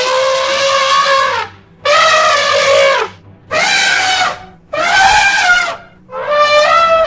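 Elephant trumpeting, as a dubbed sound effect: a string of loud calls, each about a second long with short breaks between, five in all, some wavering in pitch.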